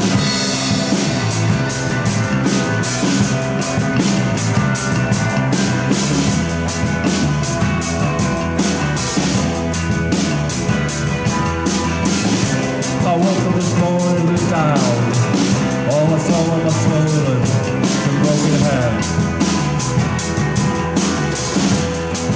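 A band playing a song on drums, bass and guitar, with cymbal strokes on a steady beat and a pitch-bending melodic line in the middle.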